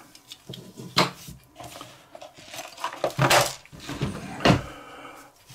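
Small metal lighter parts handled by hand: a few sharp clicks and knocks, with a short rustling noise between them.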